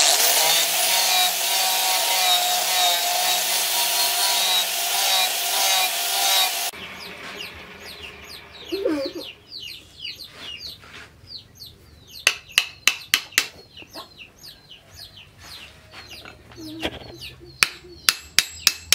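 Electric angle grinder with a sanding disc running steadily against a wooden axe handle for the first six or seven seconds, then stopping abruptly. After that chickens cluck, and two runs of sharp hammer strikes drive the double-bit axe head onto its wooden handle: about six blows midway, and more near the end.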